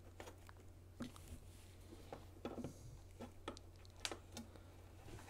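Faint, scattered light clicks and taps from a steel ruler and small metal parts being handled against a NEMA 17 stepper motor, as the shaft is measured. A low steady hum runs underneath.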